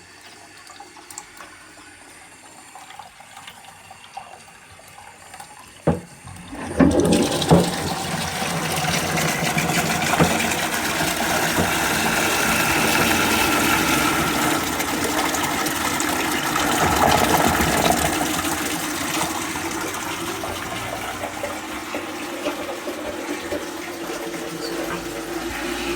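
Doulton & Co wooden high-level cistern flushing a J Tylor & Sons 'The Column' toilet pan. Faint running water, then a sharp knock about six seconds in, followed by a loud rush of water into the pan. The rush eases into steadier running water over the last several seconds.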